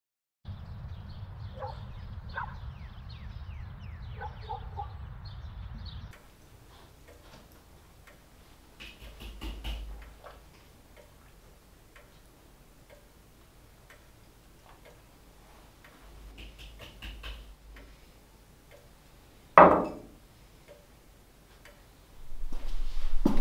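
Bird chirps over a low rumble for about the first six seconds, then a quiet room with a few faint small sounds. About twenty seconds in comes a sharp knock as a mug is set down on a wooden table.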